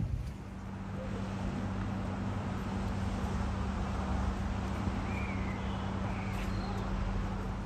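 Steady low mechanical hum over a low rumble, with a couple of faint bird chirps about five seconds in.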